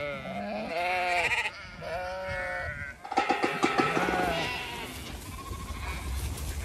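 Zwartbles sheep bleating in a crowded flock: three loud bleats in the first four and a half seconds, the last one wavering, then only quieter background noise.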